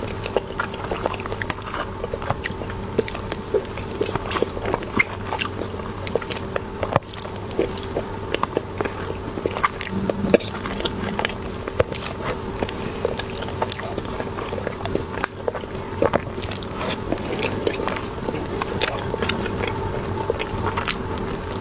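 Close-miked eating of cream cheese buns: a person biting into the soft bread and chewing, with many small sharp mouth clicks throughout, over a faint steady hum.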